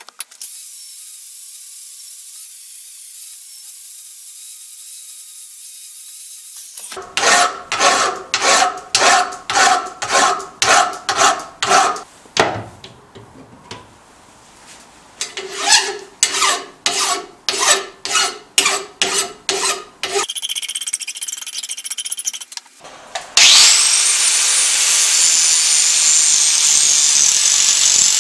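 A quiet workshop at first. Then two runs of hand-file strokes on a steel bar held in a vise, about two strokes a second. Near the end an angle grinder whines up to speed and cuts into the steel, loud and steady.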